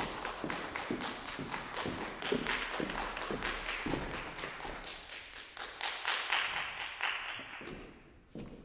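Applause from a small audience, the separate hand claps distinct in a quick, irregular patter that dies away near the end.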